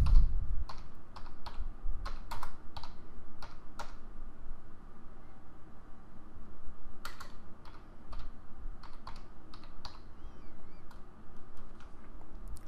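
Typing on a computer keyboard: irregular key clicks, with a pause of a couple of seconds midway.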